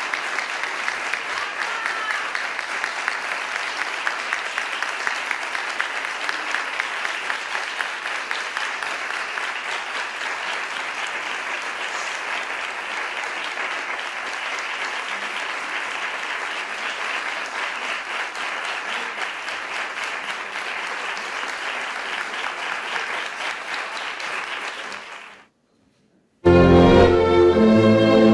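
Audience applauding steadily for about 25 seconds, then fading out. After a brief silence, music starts loudly near the end.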